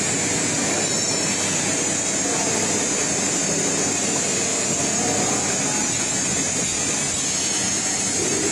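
Automatic hot foil stamping machine for plastic cups running, giving a steady mechanical noise with a high hiss.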